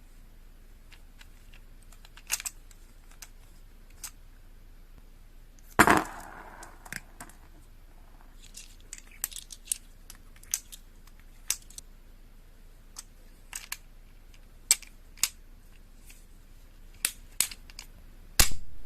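Airsoft revolver being handled and reloaded: a long run of small sharp metallic clicks and clacks at uneven intervals, with two much louder clacks, the first about six seconds in with a brief ringing clatter after it, the second near the end.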